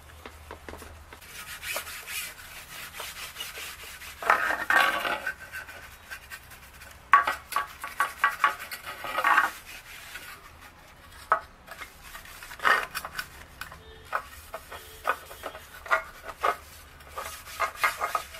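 A cloth rubbing and wiping over the plastic inside of a refrigerator in uneven strokes, with small clicks and knocks of handling in between.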